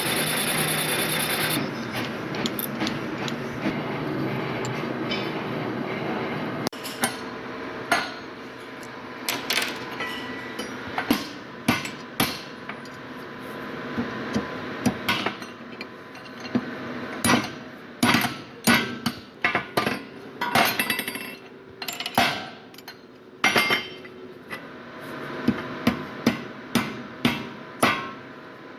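A steady machine noise cuts off about two seconds in. It is followed by a long series of hammer blows on metal: sharp, irregular strikes, often in quick runs of several.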